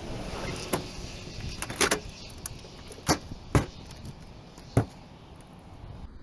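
About five sharp knocks and clunks at uneven intervals, over a steady low background rumble.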